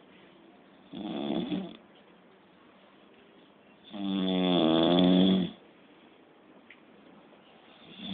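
Pig-like snoring on each in-breath. A short, rough snore comes about a second in, a longer pitched snore of about a second and a half at about four seconds, and the next one starts at the very end, roughly every three and a half seconds.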